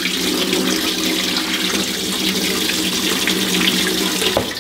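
Water pouring steadily into a kitchen sink as excess water is drained off a pot of sliced yams, a hand holding the yams back. The pouring stops suddenly near the end.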